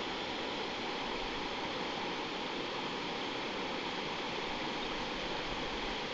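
The North Fork of the Stanislaus River running over a shallow, rocky riffle: a steady, even rush of water.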